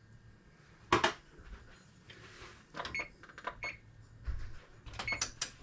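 Kitchen handling sounds: a sharp knock about a second in, then scattered lighter clicks and taps as a pan of buttered bread is readied for the broiler.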